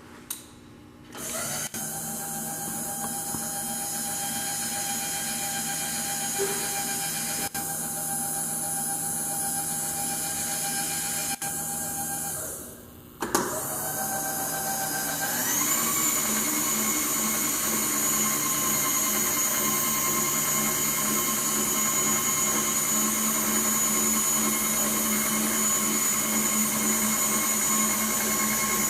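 Bridgeport Series I vertical milling machine's 2-HP spindle motor and head starting up and running with a steady whine. It shuts off about twelve seconds in, starts again at once, and a couple of seconds later glides up in pitch and runs on at the higher speed.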